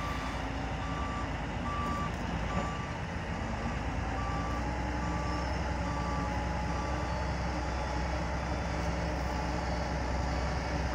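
Caterpillar motor grader's diesel engine running under load as its blade pushes soil, growing louder about four seconds in. A reversing alarm beeps steadily, about once a second, through the first part and fades out.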